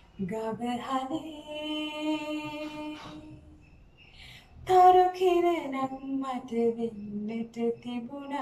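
A woman singing solo in Sinhala, unaccompanied, holding long notes. She pauses for breath about three seconds in, then starts a louder phrase just under five seconds in.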